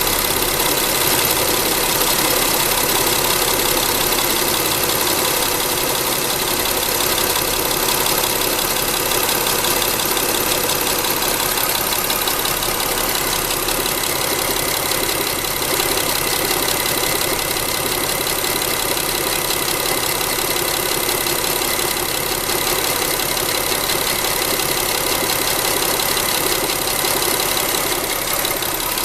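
Mitsubishi Endeavor's 6G75 3.8 L V6 idling steadily with a rapid clacking from the engine, which the owner puts down to a failing timing-belt hydraulic tensioner on a cold start.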